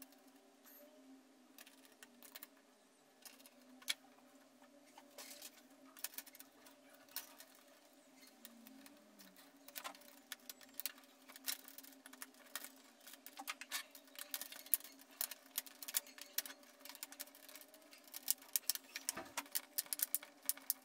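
Small plastic clicks and snaps from a laptop's plastic screen bezel being fitted onto the lid and pressed into its clips. The clicks are sparse at first and come thick and fast in the second half, over a faint steady hum.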